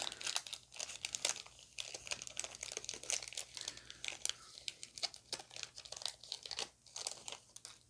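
Foil Pokémon booster pack wrapper being torn open and crinkled by hand, an irregular run of crackles and rustles.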